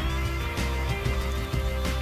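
Music with steady held notes over a heavy bass line.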